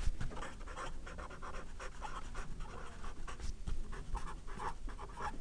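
Marker pen writing on paper: a run of short scratchy strokes as words are written out.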